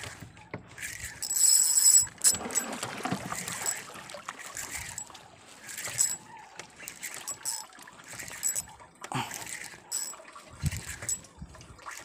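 Spinning reel being cranked to wind in fishing line, its gears whirring in short spells, with water lapping against the boat.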